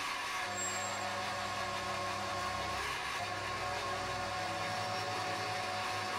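Metal lathe running steadily, its carbide-insert tool cutting across the face of a spinning aluminium block: a motor and gear hum with a hiss of cutting over it. The low hum shifts in pitch about half a second in and again around three seconds in.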